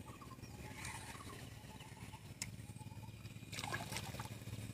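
Hooked fish thrashing at the water surface, a short splash about three and a half seconds in, over a steady low hum.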